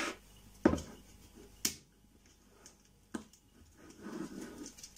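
A plastic sour-cream tub being handled: four sharp plastic clicks over the first three seconds, then a soft rustle near the end.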